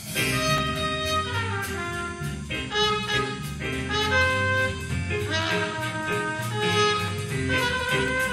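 Instrumental background music: a melody of held notes over a steady low bass line, coming in suddenly at the start.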